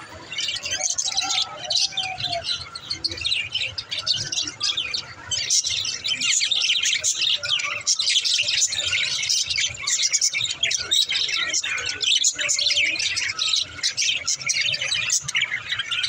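A flock of budgerigars chirping and warbling in continuous overlapping chatter, growing busier from about five seconds in.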